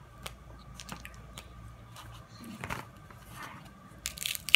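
Crab leg shells being cracked and pulled apart by hand: scattered sharp clicks and snaps with wet squishing, and a louder crackling burst about four seconds in.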